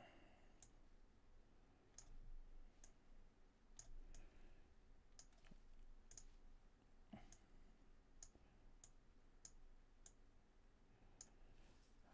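Faint computer mouse button clicks, about a dozen sharp single clicks at irregular intervals, roughly one a second, as sliders are set in an on-screen editor.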